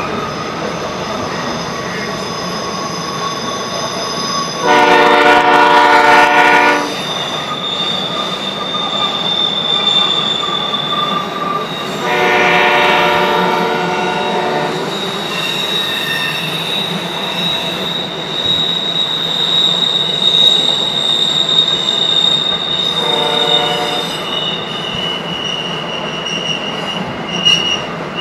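Empty intermodal spine cars and flatcars rolling through a curve, wheels squealing in steady high-pitched tones over the rumble of steel wheels on rail. A train horn blows three times: a blast of about two seconds about five seconds in, a longer one around twelve seconds, and a short one near twenty-three seconds.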